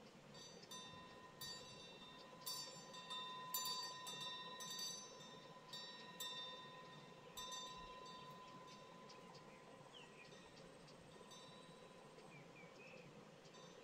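Faint metal wind chime ringing: several light, irregular strikes in the first eight seconds or so, one more later, with the tones ringing on between strikes. A few short, faint chirps come near the end.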